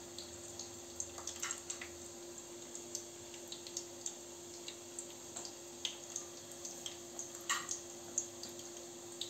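Hot oil from deep-frying chakli crackling, with many small, irregular pops over a faint steady hum.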